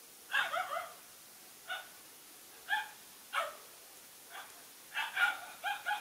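Dogs giving short, high-pitched yips and barks, about eight in all, with a cluster near the start and a quick run of them near the end.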